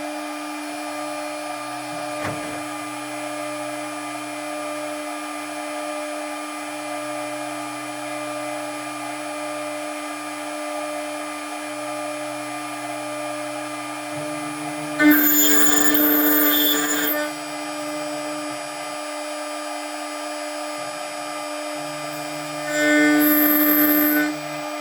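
DIY CNC milling machine running on steel: the spindle gives a steady whine throughout, and louder, harsher bursts of about two seconds each come about fifteen seconds in and again near the end.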